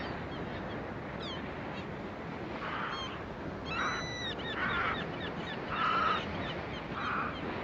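Surf breaking steadily on a beach, with seabirds giving short calls about once a second from a couple of seconds in.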